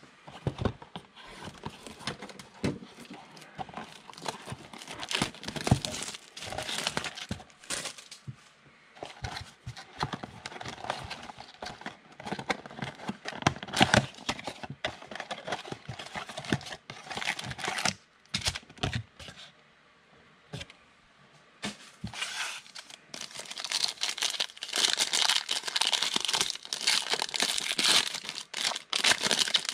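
Cardboard blaster box of football trading cards being opened by hand, with scattered taps, clicks and rustles, then foil card packs torn open and crinkled, denser and louder over the last several seconds.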